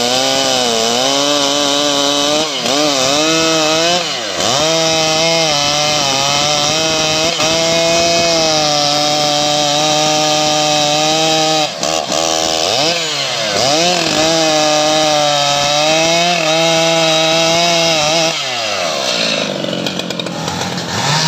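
STIHL MS 881 two-stroke chainsaw running at full throttle, cutting through a teak log. Its engine pitch sags under load and recovers several times, and near the end the revs drop back to idle.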